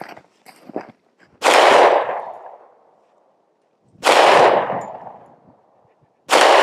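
Three gunshots about two and a half seconds apart, each loud and sharp and trailing off in an echo over about a second.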